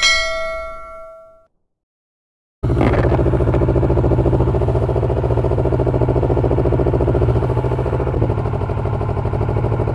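A short logo chime of a few ringing tones fades out over the first second and a half. After a brief silence, a Kawasaki ER-6n's parallel-twin engine idles steadily on a cold morning start, with the muffler outlet covered to cut the exhaust noise, though it is still noisy.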